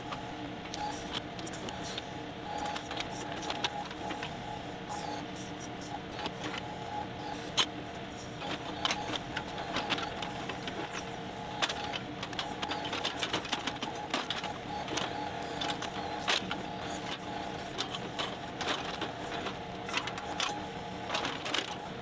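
John Deere 2038R compact tractor's engine and backhoe hydraulics running steadily while the backhoe digs, with frequent clicks and cracks from the bucket working through dirt and roots.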